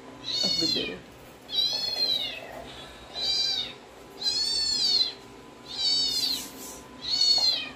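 A kitten meowing over and over: six high mews, each rising and then falling in pitch, coming a bit under a second apart.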